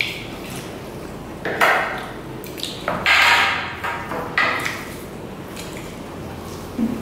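Close-up eating sounds: rice and chicken curry being mixed by hand on plates and eaten, with several short, noisy bursts, the longest about three seconds in.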